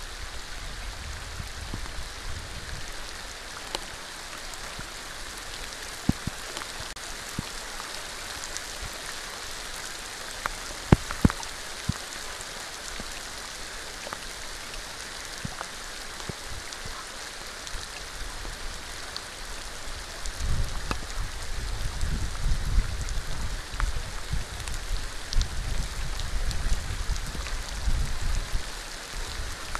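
Steady rain falling, an even hiss with a few sharp ticks of drops striking close by. About two-thirds of the way in, an uneven low rumble joins and carries on under the rain.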